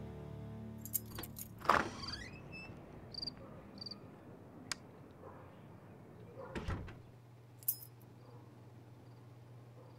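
Keys jangling and clicking at a motel room door, with a loud rattle about two seconds in as the door is worked open and small jingles after it. A dull thump comes a little past six seconds in, followed by sharp clicks and a low steady hum.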